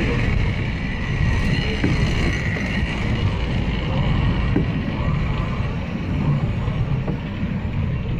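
Water-balanced cliff railway car running up its rails into the top station: a steady low rumble, with a high hiss that fades after about three seconds.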